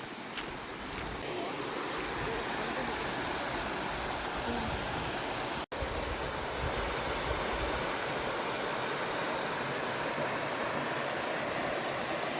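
Valley stream water flowing in a steady rushing hiss, with a momentary dropout a little before the middle.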